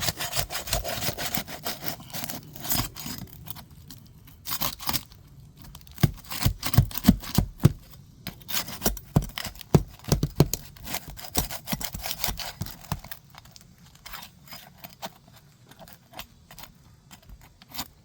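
Hand tools scraping and clicking against Elk Prestique 30 architectural asphalt shingles as a shingle is worked loose from the roof. A quick run of sharp clicks and scrapes that thins out after about thirteen seconds.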